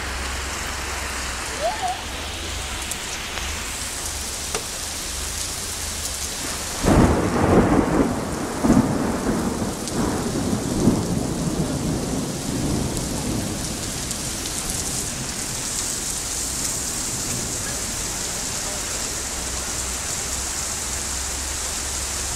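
Very heavy rain falling steadily, with a loud thunderclap about seven seconds in that rumbles on for several seconds before fading back into the rain.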